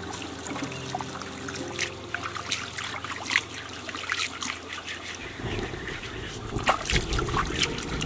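Water trickling, with scattered small splashes and drips.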